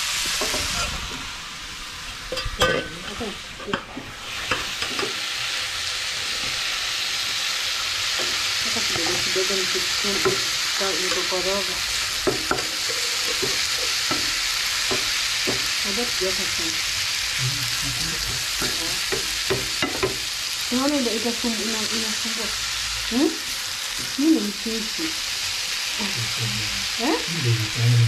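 Julienned cabbage, carrots and bell peppers sizzling in a frying pan while being stirred and turned with a wooden spoon, with short knocks and scrapes of the spoon against the pan. The sizzle is quieter for the first few seconds, then rises and holds steady.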